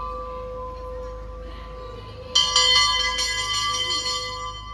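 Bells ringing: held tones fading slowly, then a fresh, louder set of bell strikes about two and a half seconds in, followed by a few more strikes.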